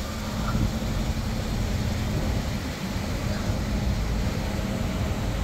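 Vintage bus engine running, a steady low rumble.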